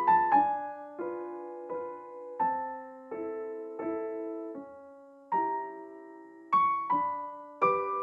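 Background music: a slow, gentle piano piece, notes and chords struck about once a second and each left to ring and fade.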